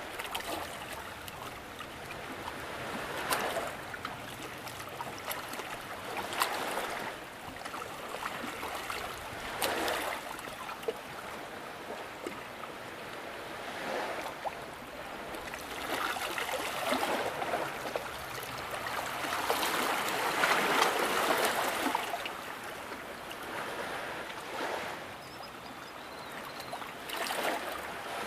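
Small lake waves lapping and splashing against a mossy rock. They wash in and out in surges every few seconds, with a few sharper splashes, and are loudest about twenty seconds in.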